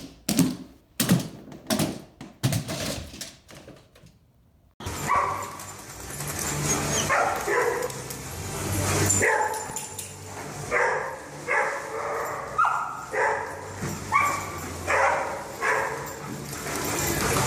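A dog barking: a run of short barks, about one a second, starting about five seconds in. Before them, a series of sharp clicks fades out.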